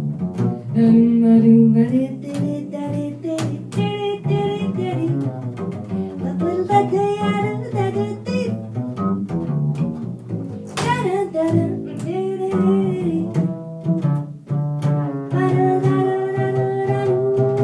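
Double bass playing a bass line with a band, other pitched instruments and a voice-like melody above it.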